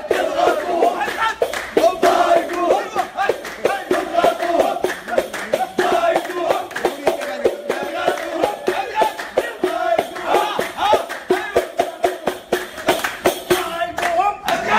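A group of men singing a celebration song, one voice out front, to steady rhythmic hand clapping.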